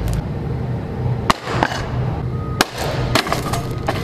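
Objects dropped from a rooftop crashing onto a concrete sidewalk: three sharp impacts, about a second in, at about two and a half seconds and just after three seconds, each with a brief clatter after it.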